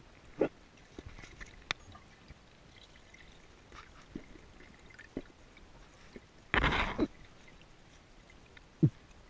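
Underwater sound from a freediver's camera underwater: scattered small clicks and knocks, and one loud rush of water noise lasting about half a second, a little past halfway. Near the end comes a short low sound that falls in pitch.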